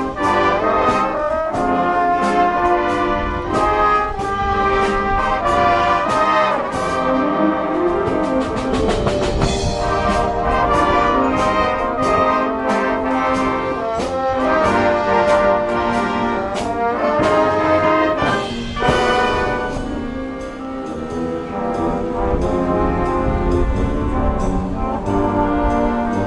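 High school wind band playing live: trumpets and trombones carry the tune over steady percussion hits, with a quick rapid run of hits about eight seconds in.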